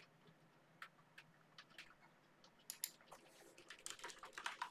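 Faint keystrokes on a computer keyboard: scattered single taps at first, then a quicker run of typing near the end.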